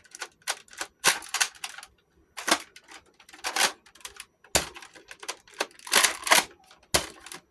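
Nerf Modulus Recon spring blaster being primed and fired about three times. Each cycle is the clack of the priming slide followed about a second later by the sharp snap of the shot.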